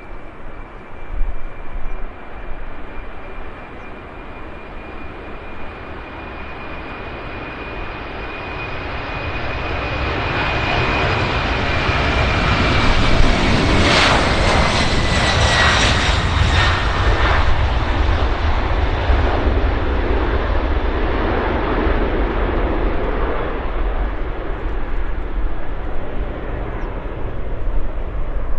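Boeing 747-400's four jet engines at takeoff thrust as the airliner passes. The sound builds to a peak about halfway through, with a high whine that drops in pitch as it goes by, then a deep rumble carries on.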